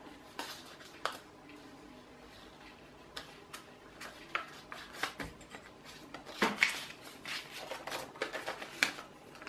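Scattered small clicks, taps and rubbing from hands working at a Creality CR-10 3D printer's glass bed, turning a levelling knob and testing a sheet of paper under the nozzle. A louder cluster of taps comes about six and a half seconds in.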